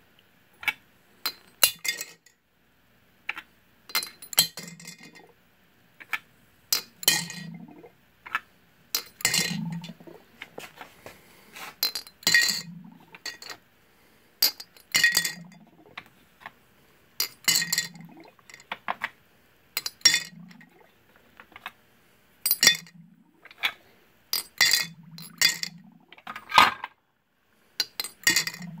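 Brass .30-06 rifle casings dropped one at a time into a glass growler of acid cleaning solution. They clink and ring against the glass and against the casings already in the jug, about every two to three seconds, and most clinks are followed by a short low tone.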